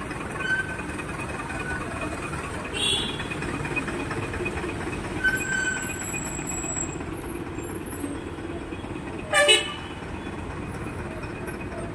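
Steady street traffic hum, with one short vehicle horn toot about three-quarters of the way through.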